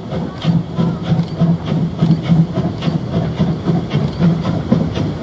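Saxon narrow-gauge steam locomotive 99 1772, a 2-10-2 tank engine of the 99.77–79 Neubaulok class, chuffing past as it hauls its train, with about two exhaust beats a second. Steam hisses from around the cylinders throughout.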